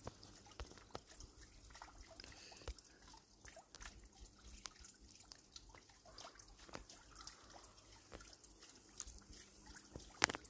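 Faint trickle of water running out of the end of poly tubing into a wooden flume, with many small drips and splashes. The low flow comes from a small solar-powered pump moving about 3 gallons a minute.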